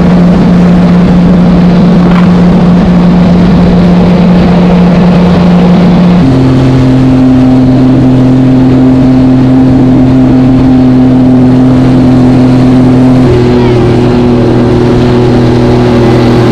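Sea-Doo GTI jet ski engine running at steady cruising speed: a steady drone that jumps to a different pitch about six seconds in and again about thirteen seconds in, over rushing water and wind noise.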